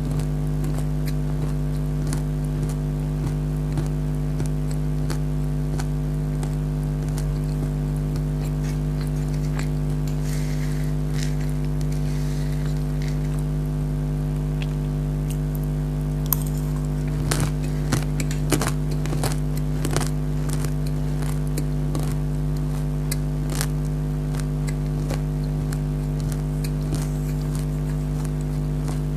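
Crunchy nimko being chewed and bitten, scattered sharp crunches that come thickest about two-thirds of the way through, with a brief rustle earlier, over a steady low hum.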